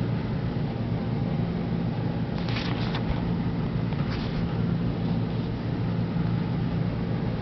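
A steady low hum, with two brief rustles about two and a half and four seconds in.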